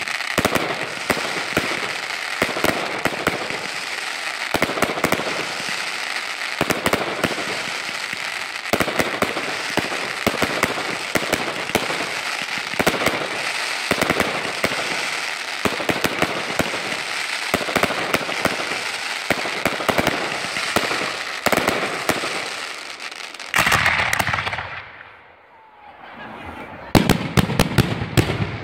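Fireworks: a ground fountain hissing steadily under many sharp cracks and bangs from crackling stars and aerial bursts. Near the end the hiss dies away briefly, then a rapid run of loud bangs follows.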